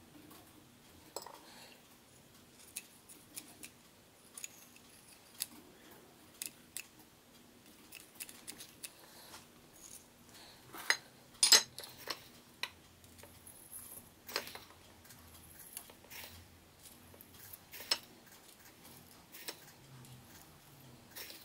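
Parts of a clear plastic salt grinder being handled and taken apart: scattered light clicks and taps of plastic pieces and small metal parts at irregular intervals, with the loudest knocks about halfway through. Near the end, a metal spoon clinks against a glass jar of salt.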